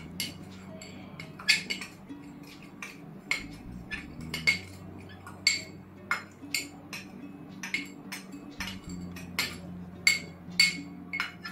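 Metal spoon repeatedly clinking against a small cup as it scoops an ingredient out into a mixing bowl: sharp, short ringing clinks at an irregular pace of about one or two a second.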